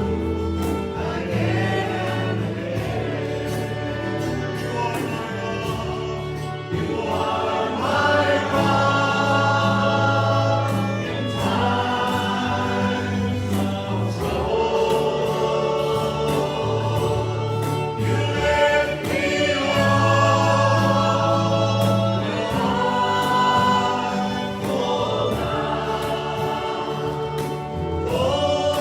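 Congregational worship singing: a group of voices singing a gospel-style hymn over steady accompaniment with sustained bass notes.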